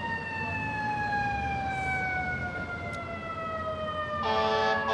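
Fire engine siren with a single tone sliding slowly and steadily downward in pitch, like a mechanical siren winding down, over the truck's engine rumble; about four seconds in, a loud air horn cuts in on top.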